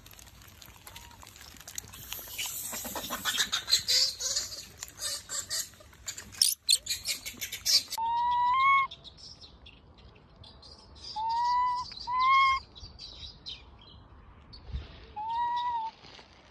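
Macaque giving four high coo calls in the second half, each under a second, clear-toned and rising slightly in pitch, two of them close together. Before them come several seconds of loud rustling and crackling.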